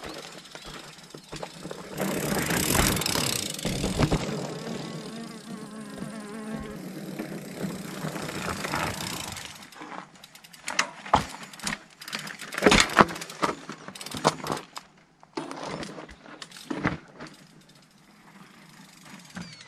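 A steady rushing noise for about the first half, then a run of sharp, irregular knocks and clatters as a mountain bike rolls down rock steps, its tyres and frame striking the rock.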